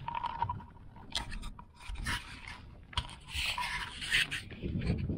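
Fingers handling the action camera on the RC buggy: irregular rubbing and scraping against the housing, with scattered sharp clicks and taps, densest about three to four and a half seconds in.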